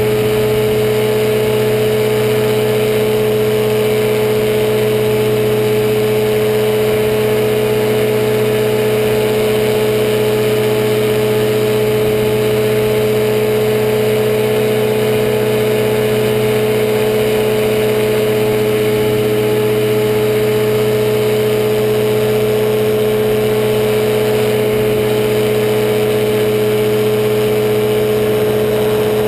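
Powered parachute's engine and pusher propeller running steadily at climb power, heard from on board the cart: a loud, constant drone whose pitch does not change.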